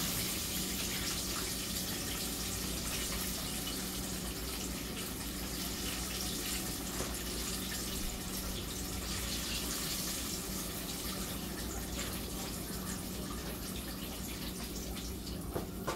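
Chicken wings deep-frying in a pot of hot oil: a steady sizzling hiss, with a couple of light clicks near the end.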